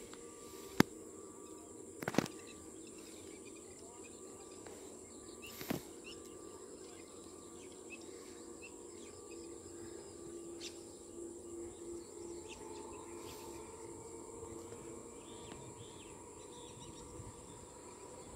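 Faint rural outdoor ambience: a steady high-pitched insect drone with scattered bird chirps. Three sharp clicks come in the first six seconds and are the loudest sounds.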